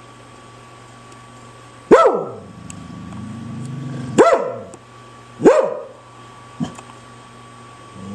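Dog barking: three loud barks, then a short softer one near the end.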